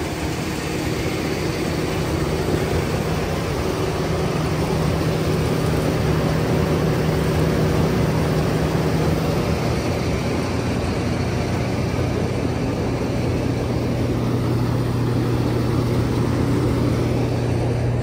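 Standard combine harvester's engine running steadily with a low drone; the engine note shifts slightly about halfway through.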